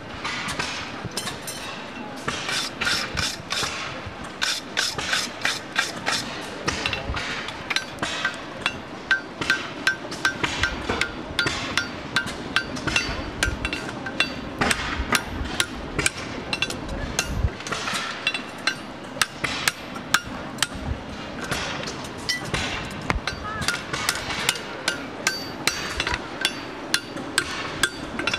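Farrier's hammer striking a red-hot draft horseshoe on an anvil, a steady run of blows about two to three a second. The anvil rings briefly after many of the strikes.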